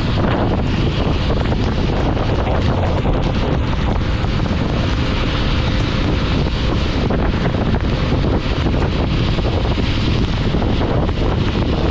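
Steady wind noise on the microphone of a moving vehicle in heavy rain, mixed with the hiss of rain and road noise.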